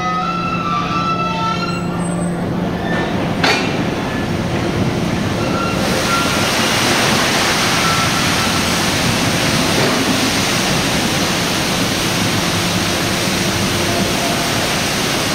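Rotary wagon tippler turning a loaded coal wagon over: heavy machinery running with a steady whine, and a sharp metallic clank about three and a half seconds in. From about six seconds on, a loud, steady rushing noise takes over.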